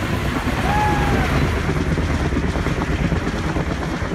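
Helicopter rotors chopping steadily, with wind buffeting the microphone. A short high-pitched call rises and falls about a second in.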